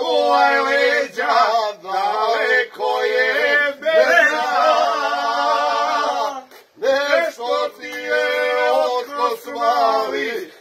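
A man singing, with long held notes and a short break about two-thirds of the way through.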